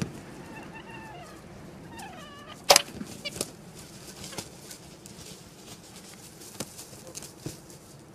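An animal calling: several short calls that fall in pitch in the first two and a half seconds. These are followed by a sharp knock and scattered lighter clicks.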